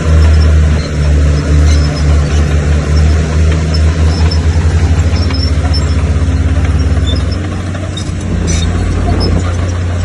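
Heavy diesel earthmoving machine, most likely the bulldozer, running loud with a deep throbbing engine note. The throb quickens in the middle and the engine eases off a little near the end.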